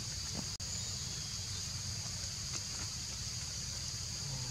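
Insects buzzing in a steady high chorus over a low rumble. The sound cuts out for an instant about half a second in.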